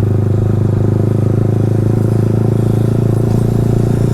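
Yamaha R15's single-cylinder engine running steadily at low revs through an aftermarket Akrapovic exhaust, an even, unchanging note.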